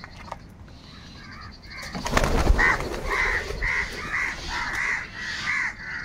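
House crows cawing repeatedly, about two caws a second, after a loud flurry of wingbeats about two seconds in as most of the flock takes off.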